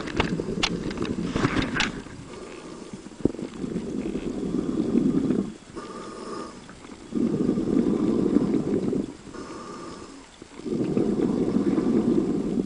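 Scuba diver breathing through a vintage regulator underwater. Exhaled bubbles come in three long rushes about three and a half seconds apart, with quieter inhalations between. Crackling bubbles and splashing are heard near the start, just below the surface.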